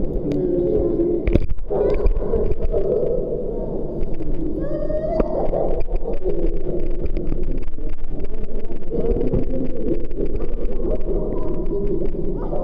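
Pool water sloshing and splashing close to the microphone, with gurgling and scattered sharp splashes.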